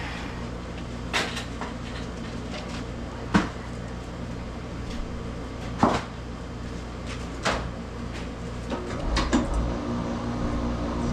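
A handful of sharp knocks and clunks, about five spread a couple of seconds apart, over a steady low mechanical hum that grows louder near the end.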